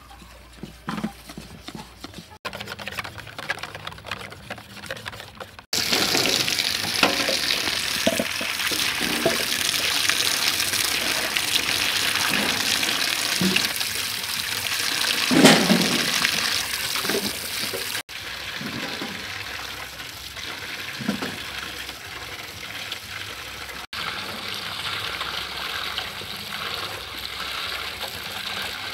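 Water running and splashing into a large metal basin while cucumbers and leafy greens are washed by hand, loudest in the middle and quieter after about 18 seconds. At the start, before the water comes in, there are faint clicks of a utensil stirring thick batter in a bowl.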